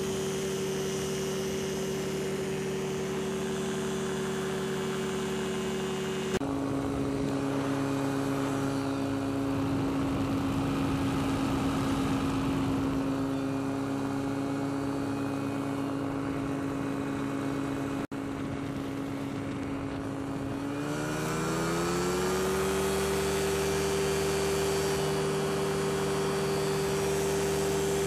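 Powered parachute's engine and propeller running steadily in flight. About six seconds in the engine note drops abruptly to a lower pitch and holds there, cuts out for an instant near eighteen seconds, then rises smoothly back up to its higher note around twenty-one seconds in as the engine speeds up again.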